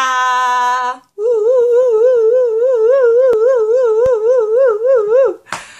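A woman's wordless sung note, held steady for about a second, then after a brief break a long note that wobbles up and down in pitch several times a second for about four seconds, ending in a breath.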